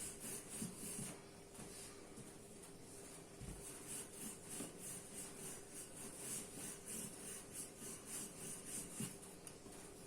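Rolling pin rolling a piece of dough out into a thin sheet: soft, rhythmic rubbing strokes, about three a second.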